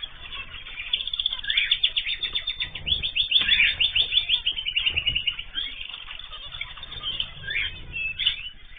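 Small cage birds chirping and singing together, with a fast trill of rapidly repeated notes from about one second in to the middle.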